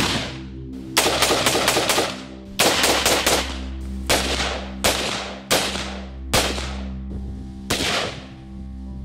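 Piston-operated AR-15 rifle (V-AR) in .223 Remington firing semi-automatic: a quick string of shots about a second in, another just before three seconds, then single shots about a second apart, each with a short echo. Background music plays underneath.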